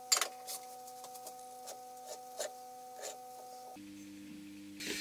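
Metal clinks and knocks from a four-jaw lathe chuck and its key being handled at the lathe spindle: one sharp clank just after the start, then scattered lighter clicks. A steady hum runs underneath.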